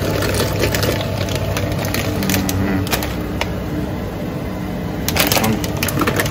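Rapid light clicks and knocks, like small hard objects handled, over a steady low hum.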